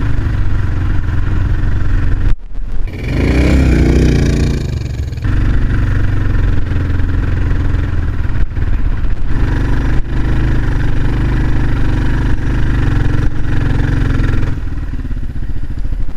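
The single-cylinder engine of a 2001 Kawasaki KLR650 is running under load, pulling the bike through thick, loose sand. About two and a half seconds in the sound cuts out briefly and the revs then surge back up. Near the end the engine eases off.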